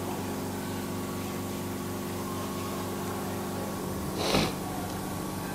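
A steady mechanical hum, like a small electric motor running, with a short burst of hiss about four seconds in.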